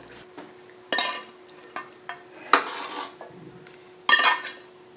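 Metal spoon scraping and clinking against an aluminium cooking pot as lamb curry is scooped out, in several separate strokes, with the loudest ringing knocks about a second in and near the end.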